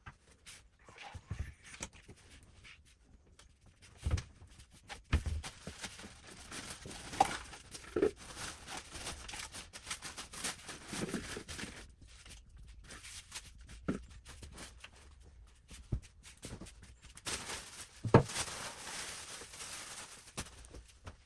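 Irregular rustling and scraping of things being handled, with a few thumps, the loudest about eighteen seconds in.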